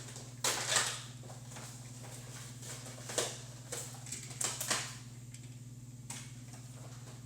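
Scattered sharp clicks and knocks of a TrackMaster Crash & Repair toy engine being handled, over a steady low hum.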